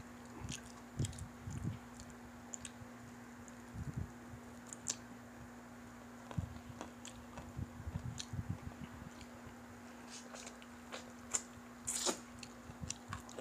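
Two people eating fried chicken by hand close to the microphone: chewing and lip smacks with scattered soft clicks, over a faint steady hum.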